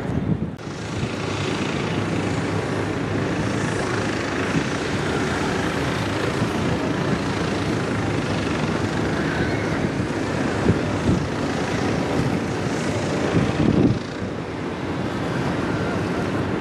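Large container ship passing close by: a steady rushing of its bow wave and hull wash through the water over a low engine drone, with some wind on the microphone. The noise eases a little near the end.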